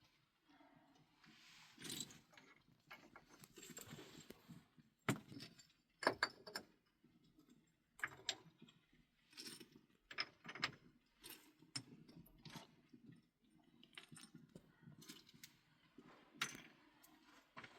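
Irregular soft clicks, knocks and rustling of objects being handled, a sharp knock every second or so.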